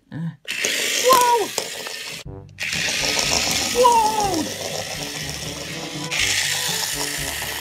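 Motorized toy train's small electric motor and gears whirring at speed, with a short break about two seconds in.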